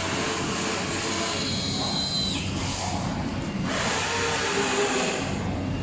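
Steady machine-like background noise with a low hum, as in a busy workshop; a brief thin high whine slides downward about two seconds in.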